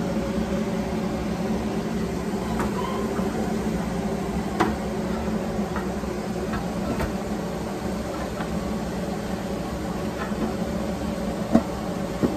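Steady appliance fan hum, with light clicks as the glass bowl and lid of a countertop halogen convection oven are handled, and two sharper knocks near the end as the lid is set back on the bowl.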